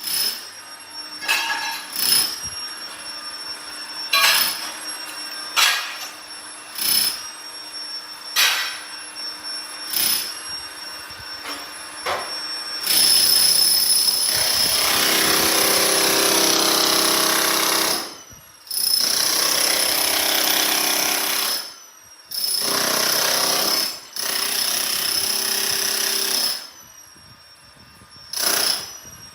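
Jackhammer on a wheeled stand chiselling up tiles and their mortar. First come single knocks about every second and a half, then, from about halfway, long runs of hammering a few seconds each with short pauses between.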